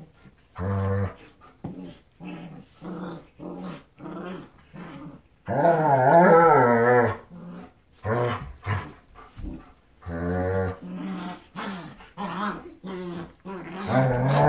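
German Shepherds growling in play as the adults wrestle with their puppy: a string of short growls, a longer wavering growl about six seconds in, and more near the end.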